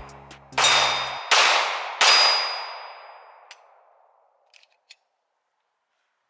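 Three shots from a 9mm Glock 19 pistol, under a second apart. Each is followed by the ringing of a hit steel target, fading over a couple of seconds. The last shot empties the magazine, and a few faint clicks follow.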